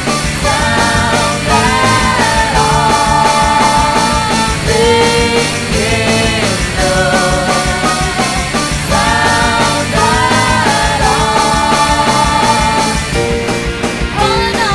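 Rock music without words: a held, bending lead melody over drums keeping a steady beat.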